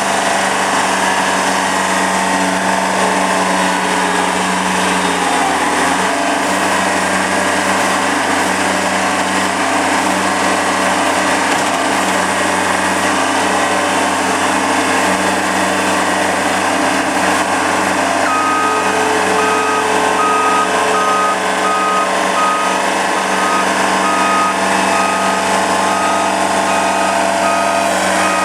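Thomas 1700 skid steer's engine running steadily; about two-thirds of the way through, its backup alarm starts beeping about once a second as it reverses.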